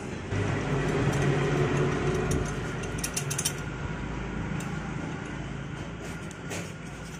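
A vehicle engine running in the background, a steady low hum that is loudest in the first few seconds. A few light metal clicks come about three seconds in and again near the end, as a motorcycle cylinder barrel is slid down over the piston onto its studs.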